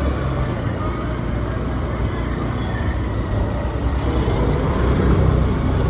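Steady road traffic noise: a continuous rumble of vehicle engines and tyres.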